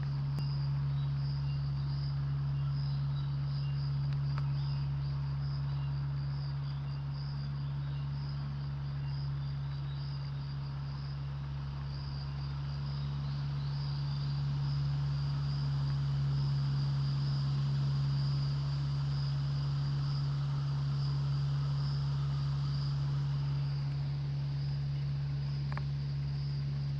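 Insects chirping in a steady, high-pitched, pulsing trill over a steady low hum, the hum being the loudest thing.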